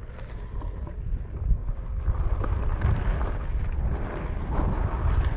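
Wind rumbling on the microphone of a rider moving over sand on a Onewheel, growing louder over the first couple of seconds as the ride picks up speed, with a few faint crackles of grit under the tire.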